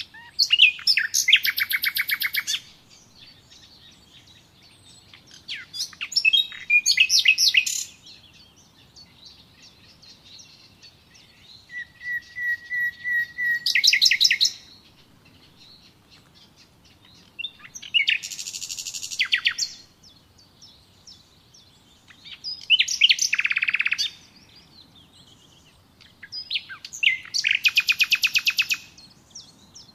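A songbird singing six short phrases, each a fast trill of repeated notes, about every four to five seconds. One phrase opens with a steady whistle before its trill. Fainter chirps fill the pauses.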